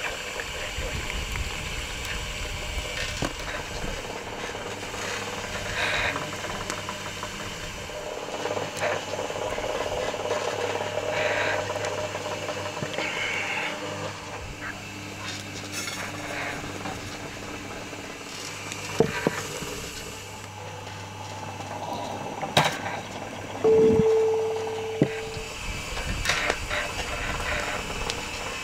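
Tea glasses, a French press and bowls handled on a table, with scattered clinks and knocks. Near the end, one clink rings on for about a second, over a steady low hum.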